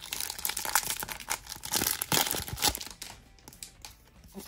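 Pokémon card booster pack's foil wrapper crinkling and tearing as it is opened and the cards are pulled out: a busy crackle for about three seconds that thins out toward the end.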